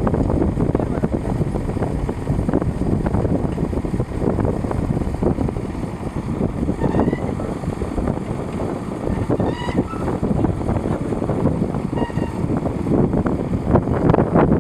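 Tractor engine running steadily under load while pulling a plough through hard ground, with wind buffeting the microphone.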